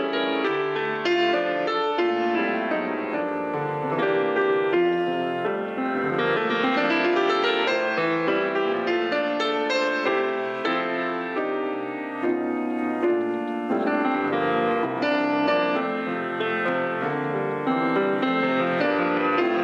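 Solo piano music playing, a continuous flowing run of notes and chords.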